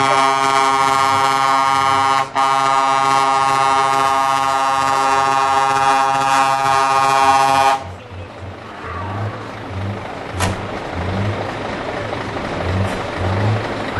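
Truck air horn blaring one long, steady chord, briefly cut off about two seconds in, then stopping abruptly about eight seconds in. After that comes a low background rumble with a sharp click.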